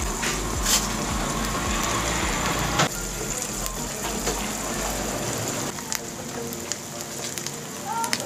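Eggs frying in hot oil in a non-stick pan: a steady crackling sizzle, with a couple of sharper pops in the first few seconds.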